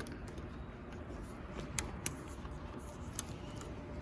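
A few light, sharp clicks of a screwdriver against the metal of an old sliding patio door lock as it is pried out of its pocket in the door.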